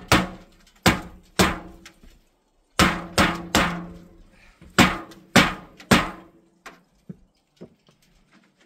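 Hammer blows on a metal chimney pipe section that is stuck fast, the pipe ringing after each strike. About nine hard hits come in uneven groups, then a few lighter taps near the end.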